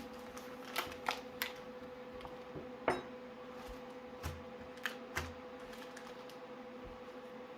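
Seven or so short, light clicks and taps at irregular moments, the sharpest about three seconds in, over a faint steady hum.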